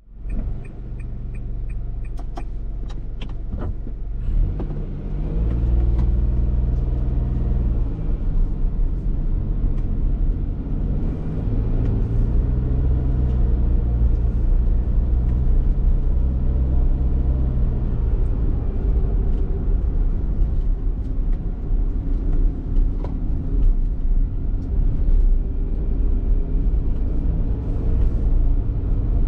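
Honda kei car on the move: its small 660 cc engine running under road and tyre noise, the engine note rising and dropping several times as it pulls and eases off. A few short clicks sound in the first few seconds.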